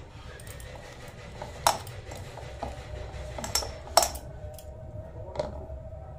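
Stainless steel bowl clinking as hands knead chopped banana flower with gram flour in it: several sharp knocks against the bowl, each leaving a short metallic ring, the loudest about four seconds in.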